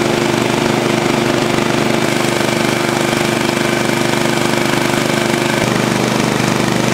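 An engine running steadily at idle, over the rush of water pouring over a weir.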